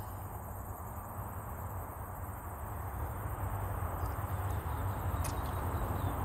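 Outdoor background: a steady low hum with a faint, steady high insect drone of crickets or cicadas.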